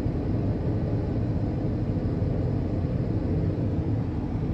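Combine harvester running steadily with its threshing rotor turning: a continuous low mechanical rumble.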